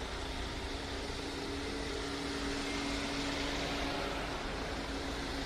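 Police patrol SUVs driving slowly past in a convoy: a steady wash of engine and tyre noise with a steady hum over it.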